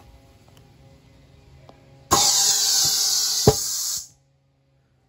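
A loud hiss of compressed air starts suddenly about two seconds in, filling a paint-loaded balloon. About a second and a half later the balloon bursts with one sharp pop. The hiss stops abruptly soon after.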